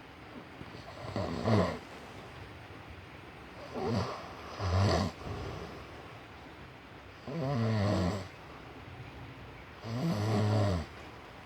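A sleeping person snoring, five rattling snores each lasting under a second, spaced two to three seconds apart.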